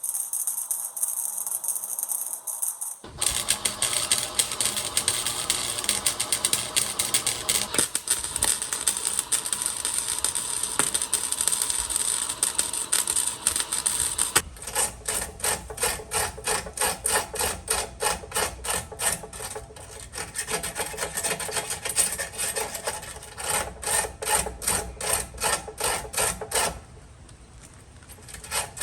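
Rasping and scraping of a tool on the car's bodywork metal: a continuous scrape, then from about the middle fast back-and-forth strokes, about three to four a second, which stop shortly before the end.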